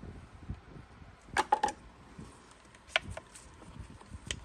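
Hand tools and hard plastic engine parts handled during small-engine reassembly: a quick cluster of three or four sharp clicks about a second and a half in, then single clicks near three and four seconds.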